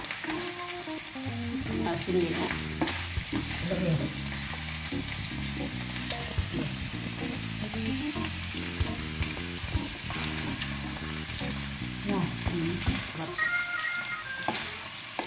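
Bamboo shoots sizzling as they fry in a pan, with a wooden spatula stirring them and scraping and knocking against the nonstick pan. Background music plays underneath.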